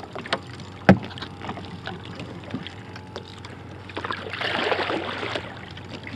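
Sea water sloshing and lapping against a small boat's hull on open water. A sharp knock comes about a second in, and a louder wash of water swells about four seconds in and fades again.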